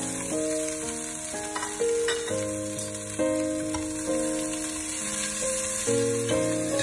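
Shallots and lemongrass sizzling as they fry in oil in a stainless steel pot, stirred with wooden chopsticks. Background music plays over it with a slow melody of held notes.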